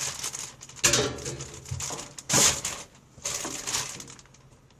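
Packaging being torn open and crinkled by hand, in uneven rustling bursts, two of them loud, about a second in and about two and a half seconds in, then dying down near the end.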